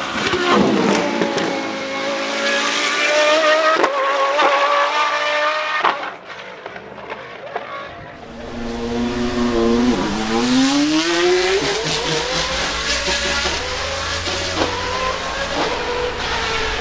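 McLaren Solus GT's Judd-derived 5.2-litre naturally aspirated V10 at high revs as the car passes: the pitch drops as it goes by, then climbs as it pulls away. After a short drop in level, a second pass comes in: the revs fall, then rise steadily as the car accelerates away.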